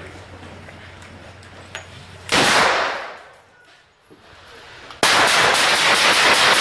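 Carbine gunfire in an enclosed shoot house: a sudden loud blast about two seconds in that fades over half a second, then a rapid string of shots from about five seconds in, running on to the end.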